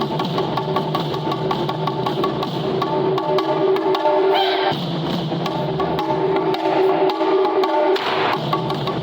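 Japanese taiko drums played in a fast, even rhythm, with sharp wooden clicks from the sticks and held melodic tones over the drumming.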